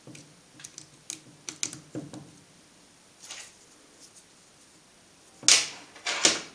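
Light clicks and taps of small metal and plastic parts as a carbon brush and its spring are pressed into the brush holder of an unplugged angle grinder. Near the end come two louder, short scrapes.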